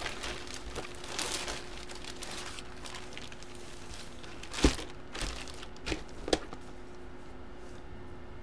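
Plastic packaging crinkling as a trading card is handled, then four short sharp clicks or taps of handling a few seconds later, over a faint steady hum.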